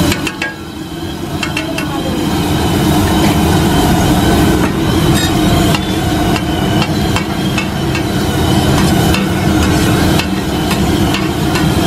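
Steel spatula chopping and scraping vegetables on a large flat iron tawa, making repeated irregular metallic clanks over a steady low rumble.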